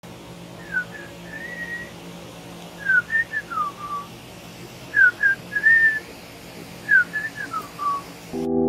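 Clear whistled phrases, each a few short gliding notes, repeated four times about two seconds apart over a steady low hum. Music starts right at the end.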